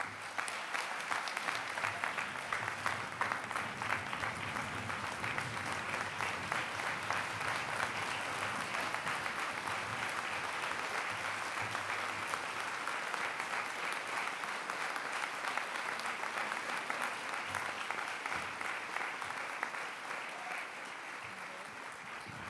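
Congregation applauding steadily in a large sanctuary, a dense patter of many hands clapping that thins slightly near the end.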